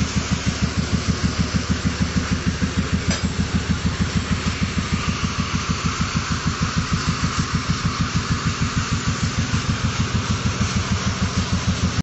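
A stationary engine driving the sawmill runs steadily at a slow, even pace, with a quick, regular beat of several thuds a second.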